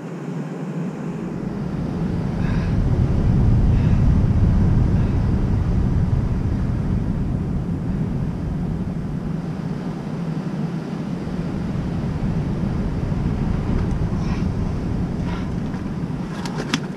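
Low rumbling wind on the microphone mixed with the sea washing against the rocks, swelling a few seconds in and then easing off. A few short clicks near the end.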